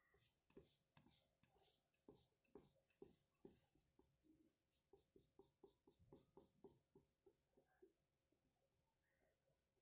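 Faint, quick scratching of a thin paintbrush stroked back and forth on a plywood board as paint is brushed on, about four strokes a second, a little softer in the second half.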